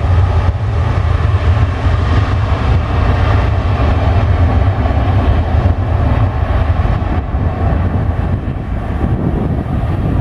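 Boeing 737-700 decelerating down the runway just after landing, its CFM56 jet engines and rollout giving a loud, steady, low rumble that eases slightly near the end.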